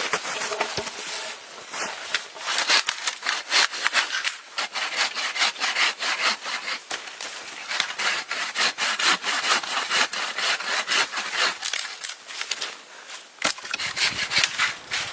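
Hand saw cutting through wood in steady back-and-forth strokes, with a short pause about 13 seconds in before a last run of strokes.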